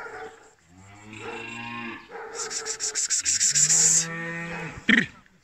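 Kangal lambs bleating as the flock is driven. A long low bleat comes about a second in and another after about three and a half seconds, with a loud harsh, pulsing rasp between them.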